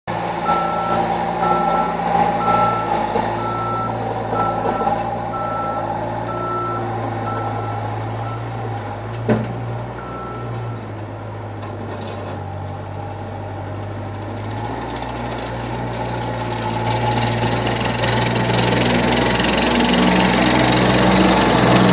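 Terex PT-50 tracked skid steer's four-cylinder Perkins diesel running, with its reversing alarm beeping at a steady rate of a little over one beep a second while the machine backs up. There is a single sharp knock about nine seconds in; the beeping stops about halfway and the engine then grows steadily louder as the machine drives closer.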